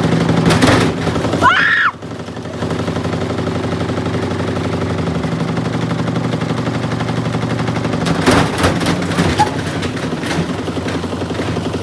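Samsung washing machine running with heavy bricks inside the drum: a steady motor hum, with the bricks banging and rattling against the drum in clusters of knocks, first in the opening second or two and again about eight seconds in.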